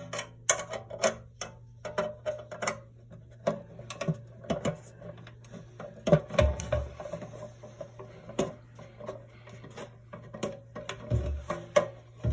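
Sharp, irregular clicks and taps of a screwdriver and metal parts on a bathroom exhaust fan housing as a Phillips screw is put back in, with a couple of dull thumps and a faint steady low hum underneath.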